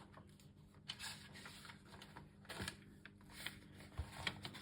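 Faint scattered clicks and light taps of small plastic toy figure parts being handled, over a low steady hum.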